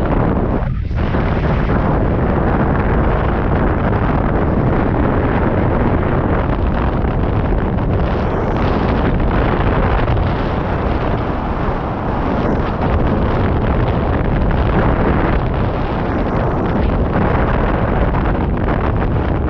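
Airflow buffeting the microphone of a camera mounted on a hang glider in flight: a loud, steady rush of wind noise, heaviest in the low rumble, thinning briefly about a second in.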